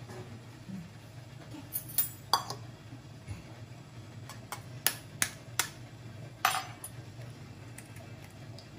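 A handful of sharp clicks and taps: a metal fork tapped against an egg to crack its shell over a stainless steel bowl, with the bowl set down on the counter.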